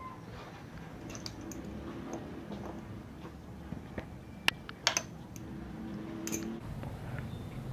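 Small clicks and light scraping as the oil filler cap is screwed back into a Suzuki Satria FU's clutch cover after the engine has been refilled with fresh oil. The sharpest clicks come about four and a half to five seconds in.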